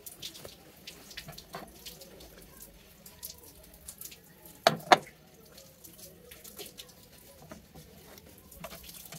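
Small wet clicks and squelches of fingers handling raw peeled shrimp on a glass plate, with a louder double knock about halfway through.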